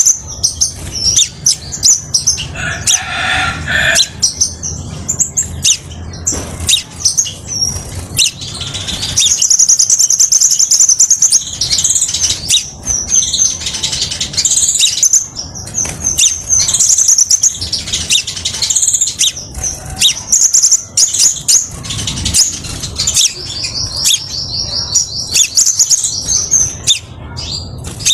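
Male crimson sunbird singing: a clear, high-pitched, nearly unbroken chatter of rapid trills and chirps.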